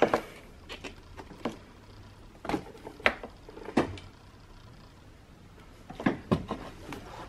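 Irregular light clicks and knocks of a screwdriver and fingers working a small rubber boost hose on and off a fitting by an engine's throttle body. The knocks come in a busy cluster over the first few seconds, then a quiet gap, then a few more about six seconds in.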